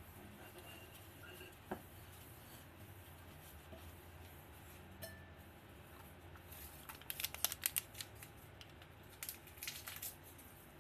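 Paper towel rubbing and rustling against the inside of a rice cooker's nonstick inner pot, in quick scratchy strokes that come in two loudest bursts in the second half.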